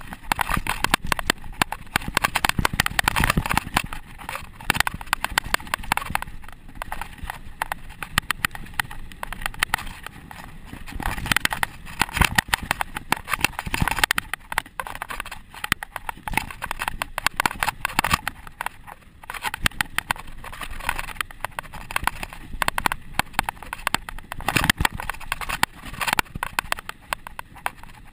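Mountain bike clattering over a rough dirt trail on a fast downhill: dense, irregular rattling and knocking from the bike and tyres over bumps and loose dirt.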